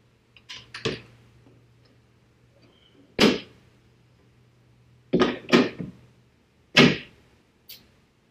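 Sharp clacks and knocks from handling a 2019 Mustang GT's hood and its heat extractor hood vent, as the vent is worked loose and the hood is raised onto its prop rod. Two light clicks come first, then a loud knock, a quick run of three knocks and another loud knock.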